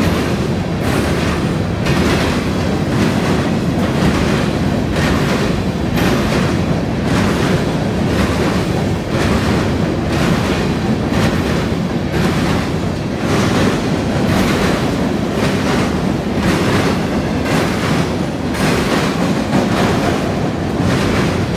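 Covered hopper cars of a CSX freight train rolling past close by: a loud, steady rumble of steel wheels on rail, with a regular clacking beat as the wheel sets go by.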